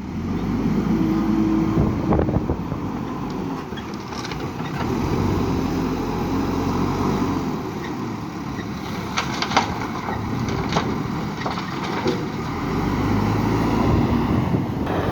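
JCB 3DX backhoe loader's diesel engine running and revving up and down under hydraulic load while loading gravel, with a burst of sharp clanks and rattles about two-thirds of the way in.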